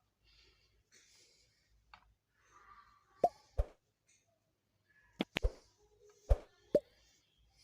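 Handling noise from small hard parts: about six sharp knocks and clicks in the second half, two of them with a short falling pop, between faint rustling.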